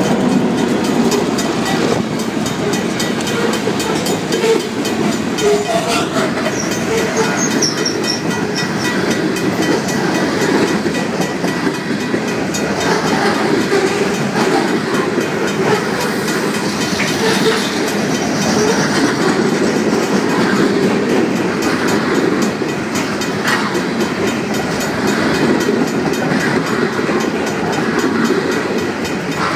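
Union Pacific freight train rolling past close by: the second locomotive goes by at the start, then covered hopper cars and tank cars. It makes a loud, steady rumble, with the wheels clicking over the rail joints all the way through.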